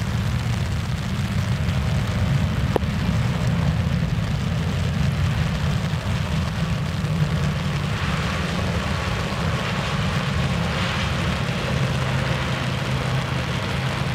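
Boeing 787-9 airliner's jet engines rumbling low and steady on arrival, with a hiss rising about eight seconds in.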